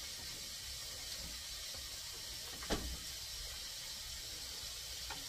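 Refrigerator door shutting with a single knock about two and a half seconds in, over a steady faint hiss.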